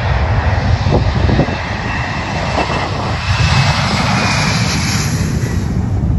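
Twin-engine jet airliner's engines at high power on the takeoff roll. Loud jet noise with a deep rumble and a faint fan whine, the hiss strongest about four to five seconds in as the aircraft passes.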